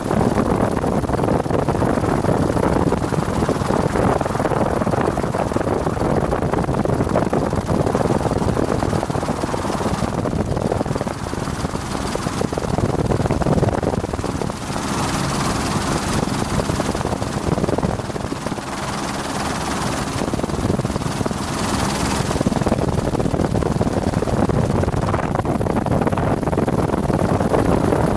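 Helicopter in flight: steady rotor and engine noise heard from aboard.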